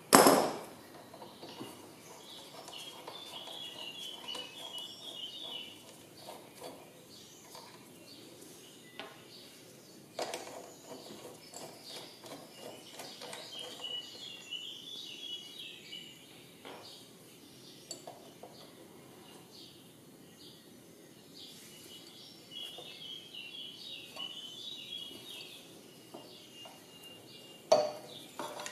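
Metal tools clinking and clanking against the scooter's front brake caliper and bolts as the caliper is unbolted and lifted off, with one loud clank at the very start and another near the end. Birds sing faintly in the background three times.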